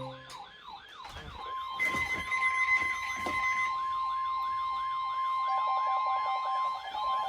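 Emergency alert signals sounding together: a siren-like warble sweeping up and down about four times a second, joined about a second and a half in by a steady warning tone near 1 kHz, the NOAA Weather Radio warning alarm tone of a weekly test. A second steady tone sounds for about two seconds, and a pulsing lower beep comes in about five and a half seconds in.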